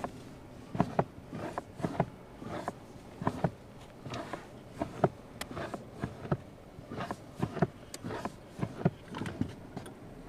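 A car making the same recurring noise while pulling away: a string of sharp, uneven clicks or knocks, about one or two a second, over a steady low running sound.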